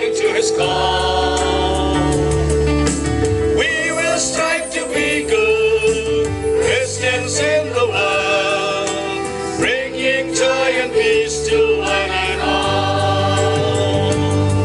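Mixed school choir of girls and boys singing a song in held notes, picked up by microphones and played through loudspeakers.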